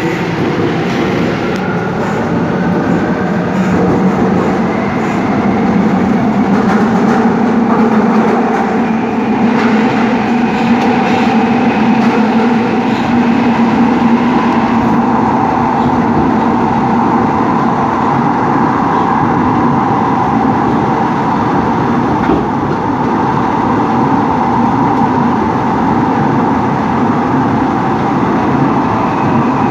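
Seoul Subway Line 5 train running: the steady whine of its electric traction motors over wheel and rail rumble. The whine shifts in pitch over the first few seconds, then holds steady.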